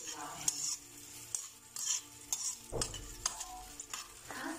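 A metal spoon stirring and scraping around a metal wok in repeated irregular strokes, about two a second, while chopped onion and garlic sizzle lightly in hot oil.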